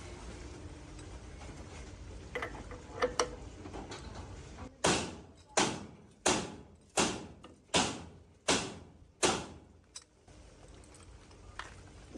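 Seven loud, sharp knocks in a steady run, about 0.7 s apart, each dying away briefly, after a few fainter clicks.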